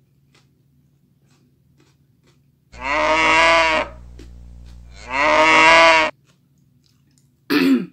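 Two long cow moos, each a little over a second and about a second apart, over a steady low hum that starts and stops abruptly with them: an edited-in sound effect. A brief, sharp sound falling in pitch comes near the end.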